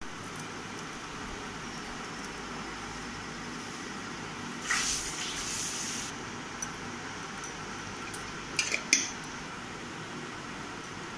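Food being added to a steel mixing bowl over a steady background hiss: a scraping rustle as a ground spice paste goes in, then a few quick clinks against the steel as powdered spice is added.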